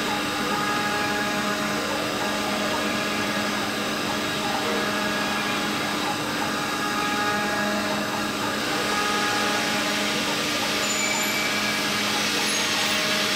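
Small five-axis CNC router running, its spindle cutting a bust from a white block: a steady whine with several held tones under a cutting hiss. The hiss grows stronger about two-thirds of the way through.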